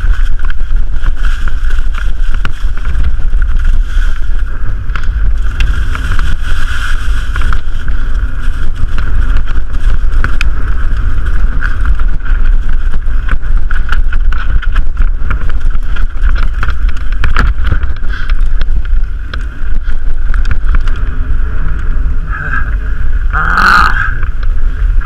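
Mountain bike rolling fast down a rough, rocky trail, heard through a helmet-mounted action camera. Wind rumbles on the microphone over a steady rattle of the bike, with many small knocks and clicks from stones and the chain. A brief louder burst comes near the end.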